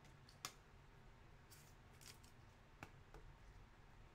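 Faint handling of trading cards by hand: a light click about half a second in, then a few soft slides and taps.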